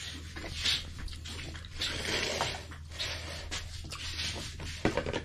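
Spoons and hands working on ceramic bowls and plates as people eat, with soft scraping and a few sharp clinks of a spoon against a bowl just before the end.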